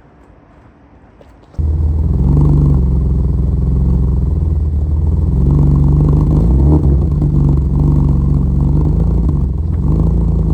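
Nissan S13's engine running at a steady idle, loud and low. It comes in abruptly about a second and a half in.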